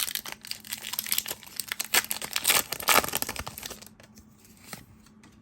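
Foil wrapper of a Pokémon booster pack crinkling and tearing as it is opened, loudest about two to three seconds in, then dying down to a few faint rustles.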